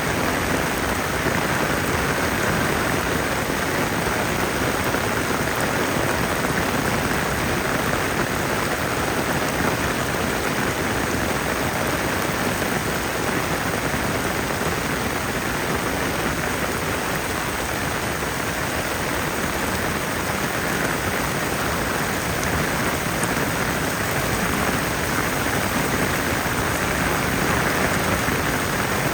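Heavy rain falling steadily, a dense even hiss with no breaks or single impacts.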